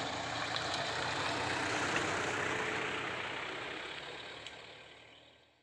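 Daihatsu Taft GT 4x4 running as it drives past on a rough dirt road, engine and tyre noise together. It is loudest about two seconds in, then fades away to near silence by the end.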